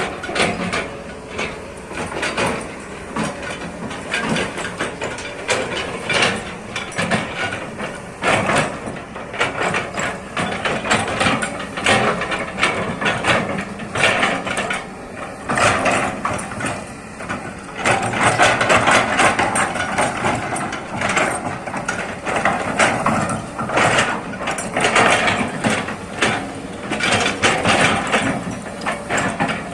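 Kobelco hydraulic excavator working, its diesel engine running steadily under a dense run of clanks and knocks from the machine and its bucket.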